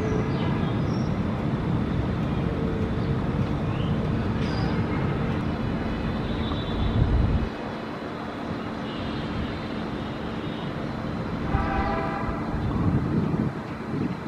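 Boeing 777-300ER's GE90 jet engines rumbling loudly as the airliner rolls out after touchdown. The rumble drops away sharply about halfway through, and a horn toots briefly near the end.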